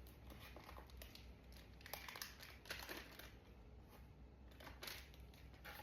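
Faint crinkling and rustling of handled packaging, with a few light clicks, over a low steady room hum.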